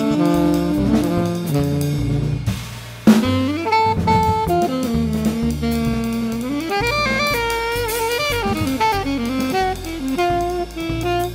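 Background jazz music with a saxophone carrying the melody over a drum kit. About three seconds in there is a brief dip, then a sharp drum hit as the tune picks up again.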